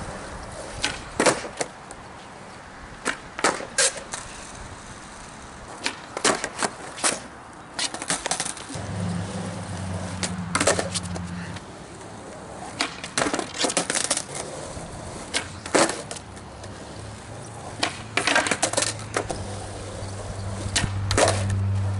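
Skateboard doing flatground tricks on a hard court: sharp tail pops and landing snaps, mostly in pairs, about a dozen through the stretch, between stretches of wheels rolling.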